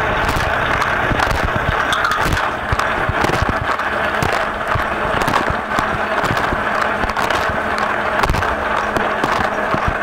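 Inside a running dishwasher: the wash jets spray a steady rush of water over the racks and onto a waterproof camera housing, with many sharp drops crackling against it, over a faint low steady hum.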